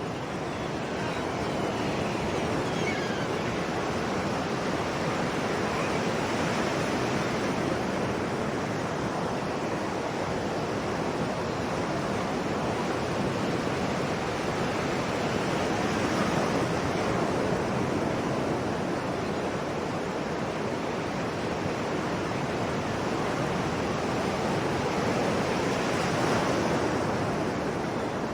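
Sea waves washing onto a shore: a continuous rush of surf that swells slightly about halfway through and again near the end.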